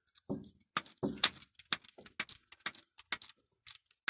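Hand-lever grease gun being pumped into a grease fitting on a combine harvester: a run of sharp metallic clicks and clacks, about three a second.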